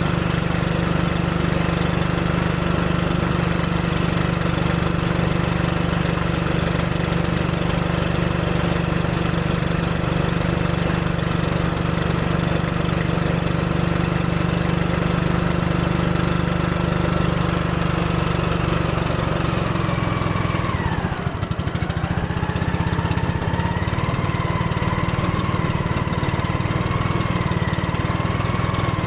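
Engine of a motorized river boat, heard from on board, running steadily under way. About twenty seconds in its pitch dips sharply, then climbs back up and runs on with a slight waver.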